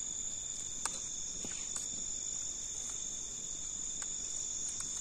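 Crickets chirring steadily in two unbroken high pitches, with a few faint clicks.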